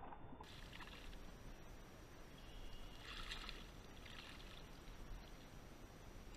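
Faint splashing of a hooked fish thrashing at the water's surface beside a kayak as it is brought to the landing net, in a few short bursts over a steady outdoor hiss.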